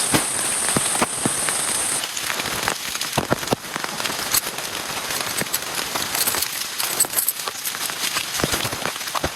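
Heavy rain falling steadily, with many individual drops striking close by as sharp ticks over the hiss of the downpour.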